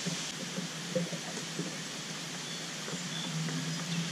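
Steady hiss of a small creek's water running through a logjam, with a few faint ticks.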